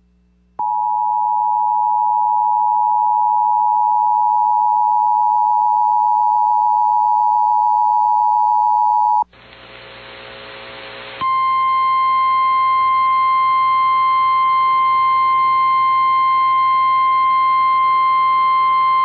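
Emergency Alert System two-tone attention signal (853 and 960 Hz together) sounding steadily for about nine seconds, then cutting off. A couple of seconds of static hiss follows. Then the single 1050 Hz weather-radio warning alarm tone sounds steadily, announcing a severe thunderstorm warning relayed over broadcast radio.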